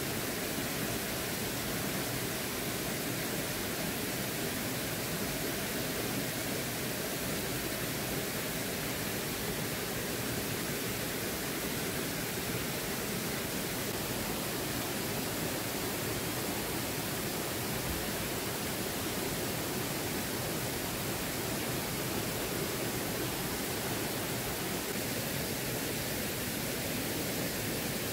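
Steady rush of flowing water: an even, unbroken hiss with no changes in level.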